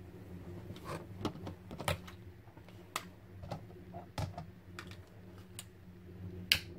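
Cooker hood fan humming steadily, with irregular light clicks and taps as a metal fork and a plastic utility lighter are handled; one sharper click comes near the end.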